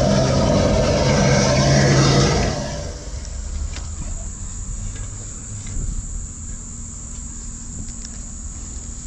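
Drain jetter's engine running steadily with the hiss of high-pressure water, then dropping sharply in level about two and a half seconds in to a quieter steady rumble with a few faint clicks.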